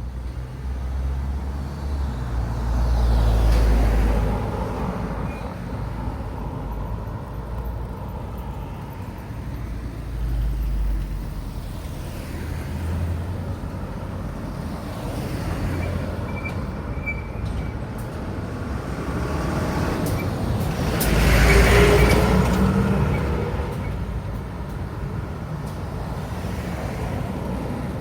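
Road traffic at a signalled junction: cars and trucks drive past one after another over a steady low rumble. The loudest is a heavy vehicle going by about three-quarters of the way in.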